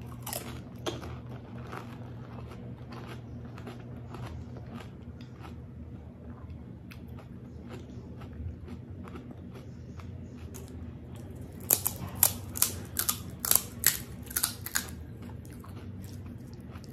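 Close-up chewing of a water-filled panipuri: the crisp puri shell cracks as it is bitten, then the mouthful is chewed with small wet crunches and mouth clicks. Between about twelve and fifteen seconds in comes a quick run of about nine louder, sharp clicks and crunches.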